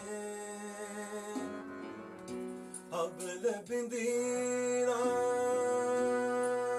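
Harmonium playing sustained chords, with a man's voice coming in about three seconds in. He sings ornamented, wavering phrases and then holds long notes over the reeds.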